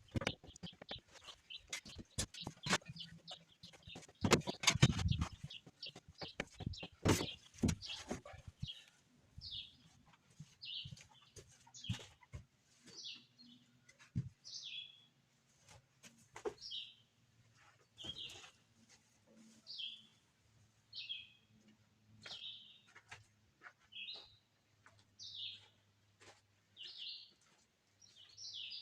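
A shovel scraping and scooping wet sawdust, with knocks and thuds, for about the first eight seconds. After that, a bird chirps short high notes about once a second over a faint low hum, with an occasional knock.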